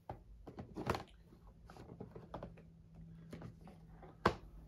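Small boxed collectibles being handled on a tabletop: a run of light taps and clicks as boxes are shifted and lifted, with a louder click near one second in and a sharp knock about four seconds in.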